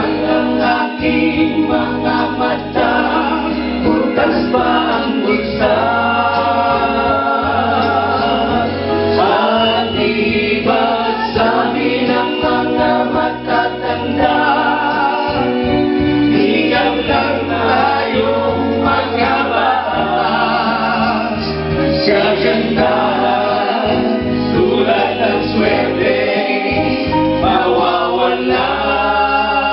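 Mixed group of men and women singing together in unison and harmony, a medley of OPM (Original Pilipino Music) songs, over an electric guitar and a steady bass accompaniment.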